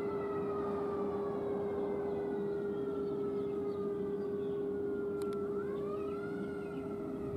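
Fire engine's siren wailing, its pitch sliding slowly down and then rising again about five and a half seconds in, over a steady lower tone.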